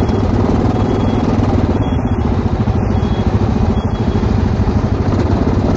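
ATV engine running steadily, a continuous drone of rapid even firing pulses.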